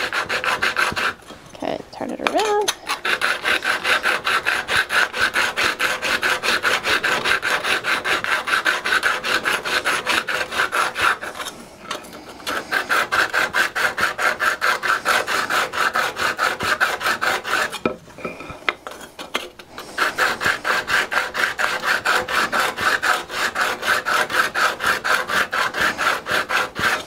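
Steel card scraper edge being honed on a dry oil stone: rapid back-and-forth strokes of steel grinding on stone, breaking off briefly three times. The scraper is held upright against the stone to square and sharpen its edge.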